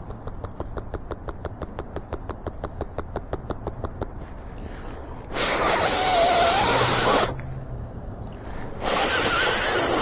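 A rapid, even clicking of about seven clicks a second, then two bursts of hissing air, each a second or two long, with a faint wavering whistle in them.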